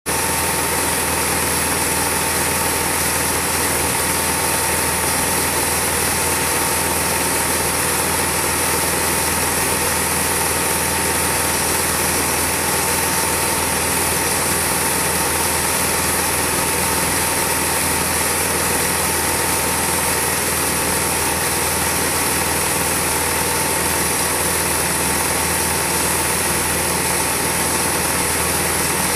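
Film projector motor and mechanism running with a steady whirr, several constant humming tones over an even hiss, unchanging throughout.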